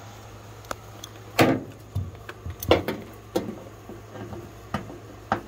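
Hand ratchet with a 1/2-inch socket working a bolt up under a truck's front fender: a handful of separate clicks and clanks of metal, uneven, about one every half second to a second.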